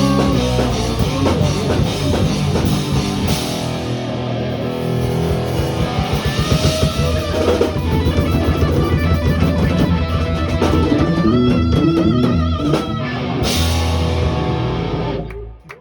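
Rock music with electric guitar and a drum kit, ending abruptly near the end.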